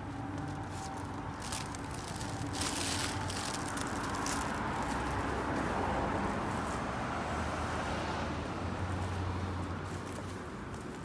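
A car passing on the street, swelling over a few seconds and fading away, with the walker's footsteps on a concrete footpath underneath.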